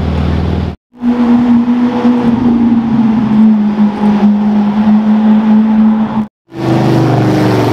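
Lamborghini Aventador SV's V12 running loud at steady revs as the car drives past, its note creeping slightly higher. The sound cuts out twice, and after the second break a different engine is heard, its pitch falling.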